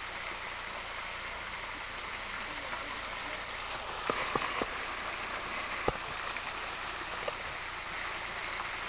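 Steady rushing of water from a small forest waterfall, about four metres high. A few sharp clicks come in quick succession about four seconds in, and one more near six seconds.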